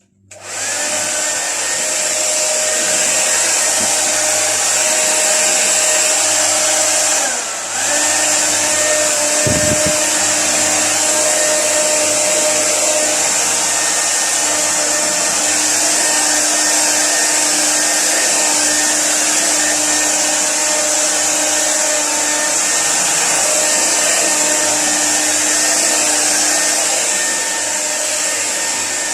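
Hair dryer switched on and blowing steadily, a loud rush of air with a steady motor whine. About seven seconds in it briefly drops and comes back.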